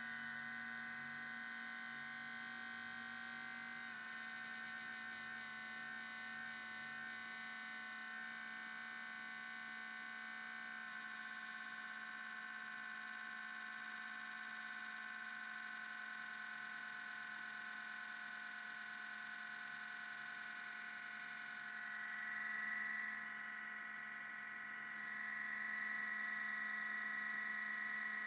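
MacBook Pro cooling fan running at high speed during startup: a steady whine of several high tones. It swells louder twice near the end.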